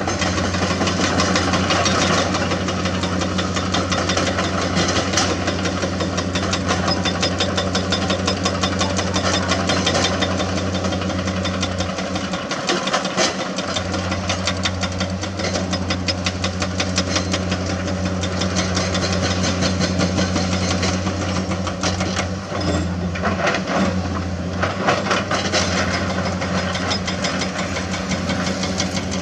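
Hydraulic rock breaker on a CAT 336D excavator hammering limestone in rapid, continuous blows over the steady running of the excavators' diesel engines.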